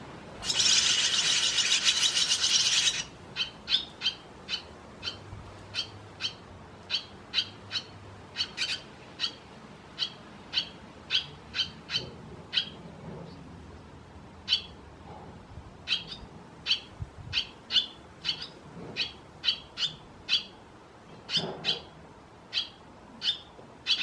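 Young barn swallows calling: a loud burst of rapid twittering lasting about two and a half seconds near the start, then a steady series of short high chirps, roughly two a second.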